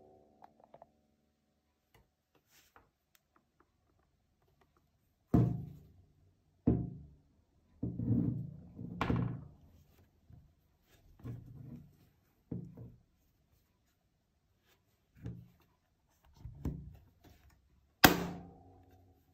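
A series of dull thunks and knocks from objects being handled and set down, about ten of them, with the sharpest and loudest knock near the end.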